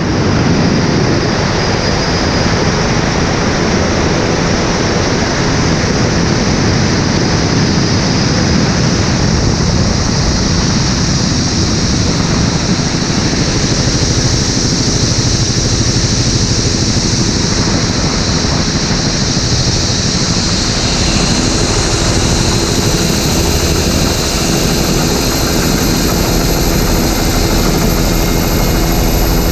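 Helicopter running close by, a steady fast rotor beat under a high turbine whine. About two-thirds of the way through, the low beat grows stronger and a thin, very high whine comes in.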